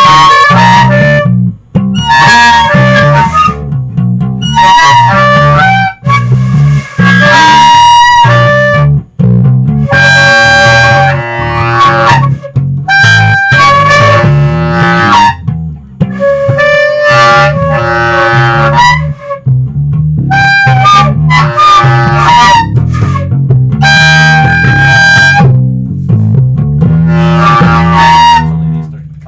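Instrumental music: a reedy lead melody played in short phrases over a pulsing bass line, stopping just before the end.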